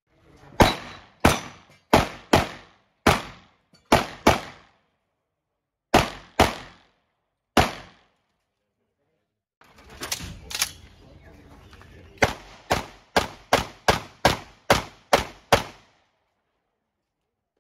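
Handgun fire during practical shooting stages: two strings of sharp pistol shots, many of them in quick pairs, about ten shots and then, after a pause of a couple of seconds, about eleven more. Each shot has a short echo.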